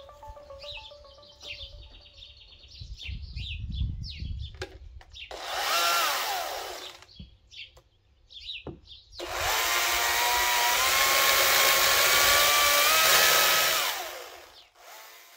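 Birds chirping. Then a chainsaw revs briefly about five seconds in, and from about nine seconds it runs steadily for some five seconds, cutting into a wooden carving block while its pitch climbs slightly, before dying away.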